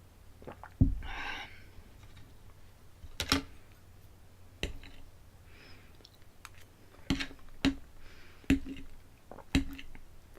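Cutlery knocking against a plate: a heavier thud about a second in, a short scrape, then a string of sharp clicks roughly once a second.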